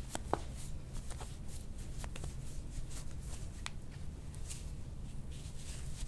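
Hands rubbing and working over a patient's back, soft rustling of skin and clothing with scattered light clicks, over a low steady hum.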